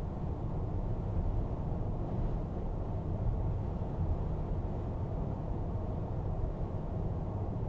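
Steady low rumble of road and engine noise inside a car cabin cruising at highway speed.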